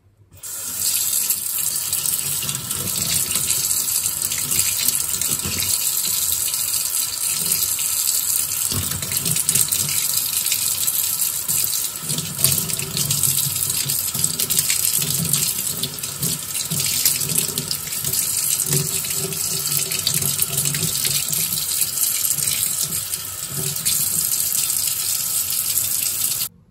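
Tap water running steadily into a sink while a plant's bare roots are rinsed under the stream. It starts about half a second in and stops suddenly near the end as the tap is turned off.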